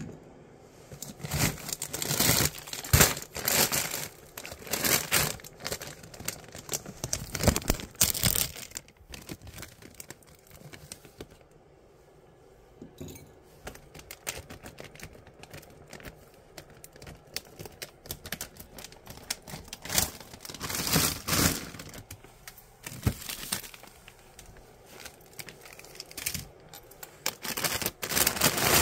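Plastic bags of frozen food crinkling and rustling as they are handled and rummaged through, with scattered clicks and knocks, coming in uneven bursts.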